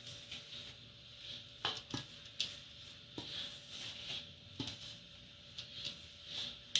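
A spatula scraping and stirring a crumbly flour-and-oil mixture in a stainless steel mixing bowl, with a few sharp knocks of the spatula against the bowl at irregular intervals.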